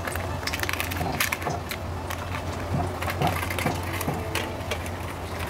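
Wooden chopsticks clicking and a paper air-fryer liner crinkling as marinated chicken wings are placed into the air fryer basket, over a steady low hum.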